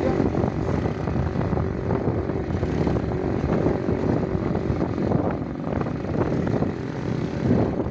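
Motorcycle engine running steadily while riding over a dirt road, with road rumble and wind on the microphone.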